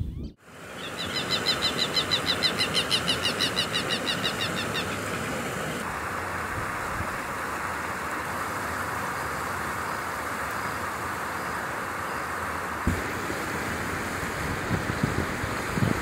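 Southern lapwing calling a fast run of harsh, repeated notes, about seven a second, for around four seconds. A steady background hiss follows for the rest of the time.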